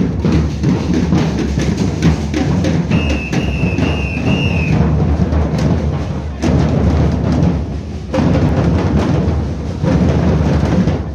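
Marching drums of a procession band beating loudly, with deep bass-drum strikes and rapid snare-like hits. A brief high whistle-like tone sounds from about three to five seconds in.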